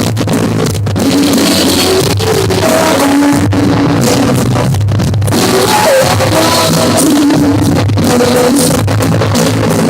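Loud live rock song with guitar accompaniment and held sung notes over a steady bass.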